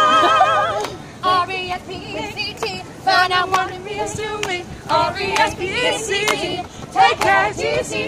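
Several women's voices singing a cappella in harmony, holding a long vibrato chord that ends about a second in. Shorter wavering vocal phrases with pauses between them follow.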